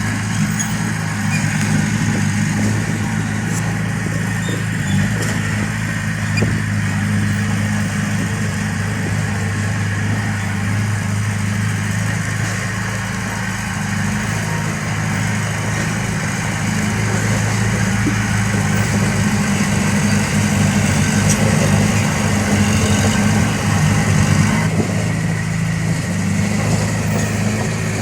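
Diesel engine of heavy construction equipment running steadily with a deep, even hum, getting a little louder in the second half.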